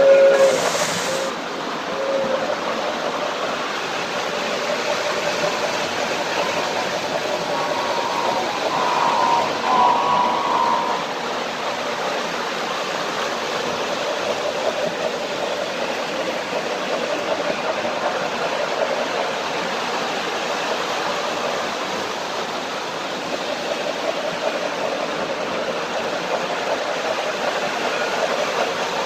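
O-gauge model trains running around the layout: a steady hiss and rumble of the trains rolling on their track, with a brief faint tone about nine seconds in.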